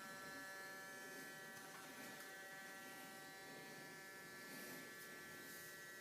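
Faint steady electric whine of a model helicopter's mechanical rate gyro spinning, a buzz made of several steady high tones.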